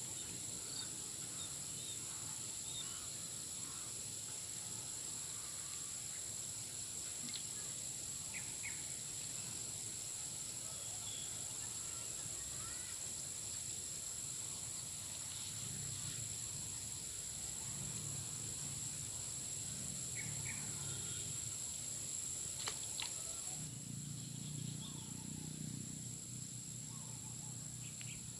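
Rural outdoor ambience: a steady high-pitched drone of insects, with scattered short bird chirps. A low rumble comes in near the end.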